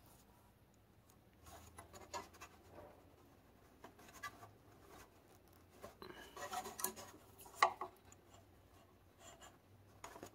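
Faint rustling, scratching and small clicks of wire leads and bullet connectors being handled and pushed together on a Honda GX160's stop-switch wiring, with one sharper click about three quarters of the way through.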